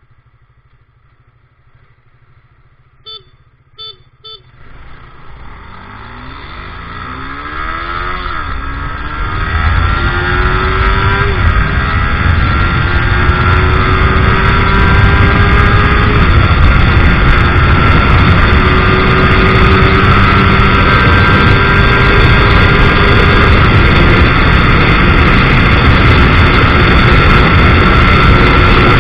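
Suzuki GSX-R150's single-cylinder engine pulling away under hard acceleration and running up through the gears. Three short beeps come first, and the engine pitch drops briefly at each upshift. From about ten seconds in, the engine is loud and steady at speed under heavy wind rush.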